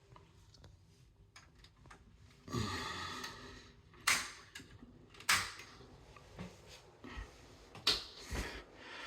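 Circuit breakers in a home's breaker panel being switched on one at a time: a few sharp snaps spaced a second or more apart, with a brief rustle about two and a half seconds in.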